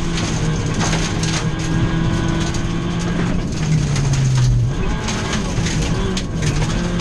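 Ford Fiesta V1600 rally car's 1.6-litre engine running hard, heard from inside the cabin, its note dropping in pitch about halfway through. Gravel and stones knock and rattle against the car throughout.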